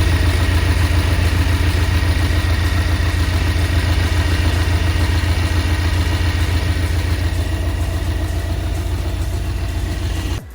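Porsche 718 Boxster's 2.0-litre turbocharged flat-four engine idling steadily with an even low pulse, then cutting off suddenly near the end.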